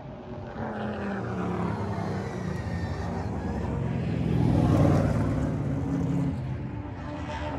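Race cars' engines at speed lapping a short oval track. The engine note grows louder to a peak about five seconds in as a car passes close, then fades as it pulls away.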